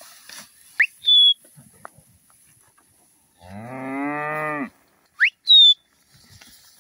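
Two shrill two-part whistles, each a quick rising note then a falling one, about a second in and again near the end: a handler's whistle commands to a working stock dog. Between them a Hereford cow moos once, for about a second.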